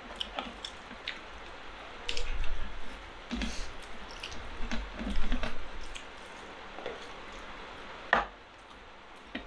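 Close-up eating sounds of chicken biryani being eaten by hand: fingers squishing and mixing the rice, with wet chewing and lip-smacking in short irregular clusters. A short, sharper slurp comes near the end.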